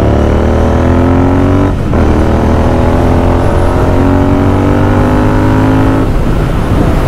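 Royal Enfield Interceptor 650's parallel-twin engine through a Barrel Atom aftermarket exhaust, accelerating hard through the gears. The note climbs, drops at an upshift about two seconds in, climbs again for about four seconds, then falls away near the end.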